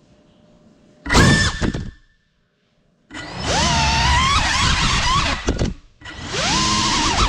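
Brushless motors of a 6S GEPRC Cinelog35 cinewhoop whining in throttle bursts: a short burst about a second in, a longer one from about three seconds to nearly six, and another starting near six seconds, the pitch rising as each burst is punched.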